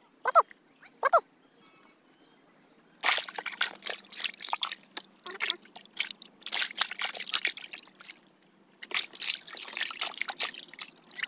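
Water trickling and splashing in uneven spells as a soaked cast net and the fish caught in it are handled in a wooden boat. Two short pitched calls come in the first second and a half.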